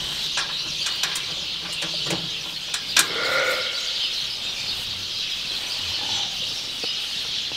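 Ewes in a barn pen, with one short bleat about three seconds in, over a steady high hiss and scattered clicks.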